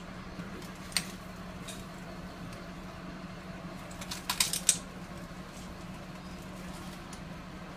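A steady low hum with a few light clicks: one sharp click about a second in and a short rattling cluster of clicks about four and a half seconds in.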